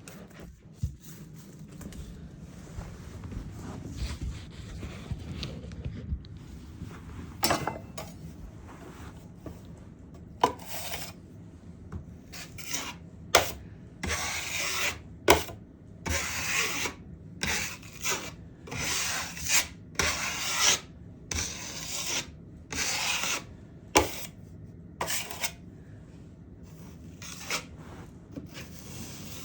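Metal drywall knife spreading and scraping drywall mud (joint compound) across a wall patch. From about halfway in comes a run of short rasping strokes about a second apart, with a few sharp clicks of the blade scattered through.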